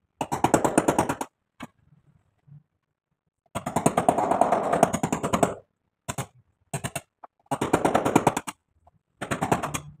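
Electric hammer drill or small rotary hammer running in bursts of very rapid hammering against masonry: about four runs of one to two seconds, with two brief blips between them, stopping and starting each time.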